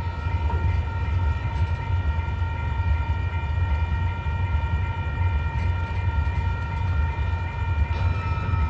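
Freight train of steel coil cars rumbling at the crossing, with a steady, even high-pitched tone held over the low rumble.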